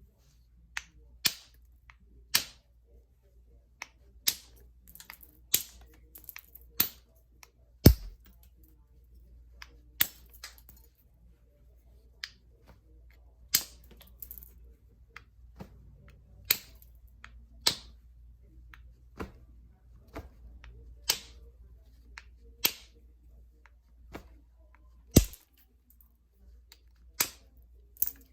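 Novaculite being flintknapped: sharp clicks and snaps at irregular intervals of about a second as flakes come off the stone, with two heavier knocks, one about a third of the way in and one near the end.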